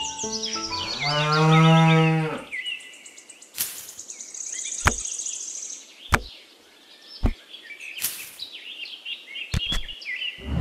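A cow mooing once: a single long, low call of about a second and a half near the start. After it come a few sharp knocks and short scrapes, with high bird chirps.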